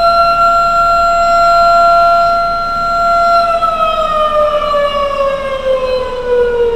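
Air-raid siren holding a steady wail, then winding down in pitch from about halfway through.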